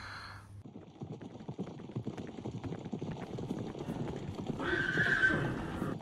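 Horses galloping over grass: a rapid drumming of hooves that grows louder, with a horse neighing about five seconds in.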